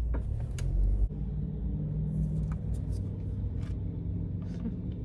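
Steady low rumble of a car heard from inside the cabin, a little louder in the first second, with a few faint ticks.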